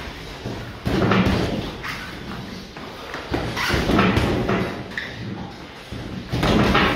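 Boxing gloves thudding in flurries of punches during sparring, in three loud bursts about a second, three and a half seconds and six and a half seconds in.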